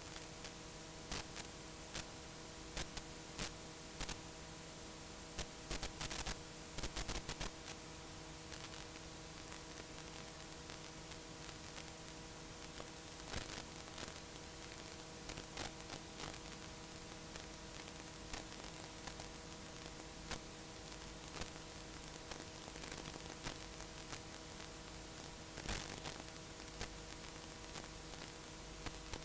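Steady hiss and hum of blank videotape playing back after the recording has ended, with scattered crackles and clicks, most of them between about one and seven seconds in and one more near the end.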